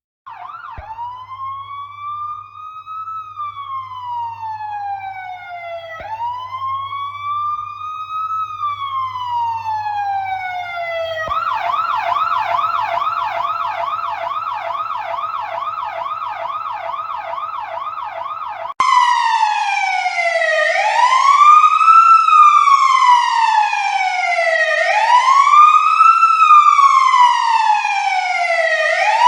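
Electronic siren switching between tones: a slow wail rising and falling about every five seconds, then from about 11 s a rapid yelp of two or three warbles a second, then from about 19 s a louder wail that climbs quickly and falls slowly. A faint low hum lies under the first two patterns.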